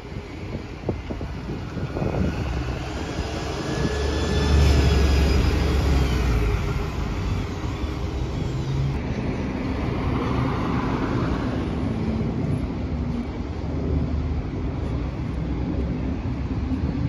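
Diesel engine of a Volvo single-deck bus driving past close by, swelling to its loudest about four to six seconds in with a whine over the low rumble, then fading as it pulls away; more bus engine noise from the bus station follows.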